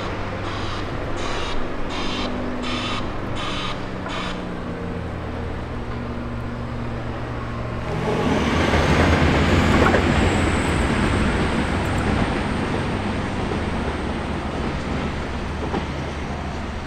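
K-class steam locomotive and its train moving slowly, heard first from farther off with a steady hum and a regular beat about three every two seconds. About halfway in it is much closer and louder, a rush of steam and rumble that peaks a couple of seconds later and eases slightly toward the end.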